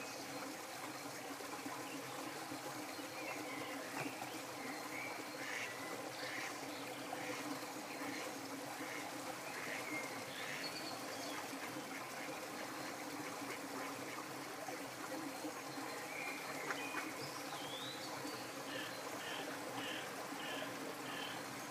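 Steady flowing-water sound with birds calling over it: scattered short chirps, then a run of about six short, evenly spaced notes near the end.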